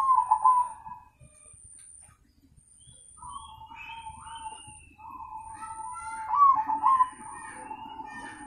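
Zebra dove (perkutut) cooing: a loud coo phrase right at the start, then a run of coo phrases from about three seconds in, loudest around six and a half seconds.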